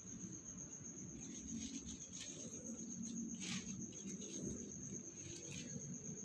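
A cricket trilling steadily in a high, pulsing tone, with a few short rustles of paper and plastic bags being handled.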